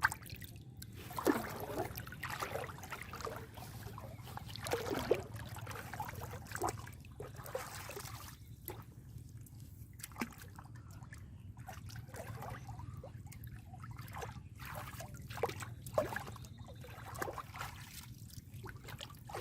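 Shallow pond water splashing, trickling and dripping in irregular short bursts as a gill net is worked through the water and lifted.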